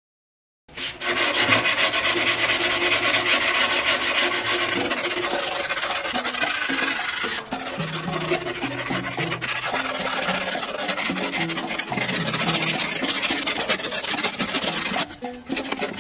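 Latin-style background music starts about a second in, with a fast scraped-percussion rhythm over a stepping bass line.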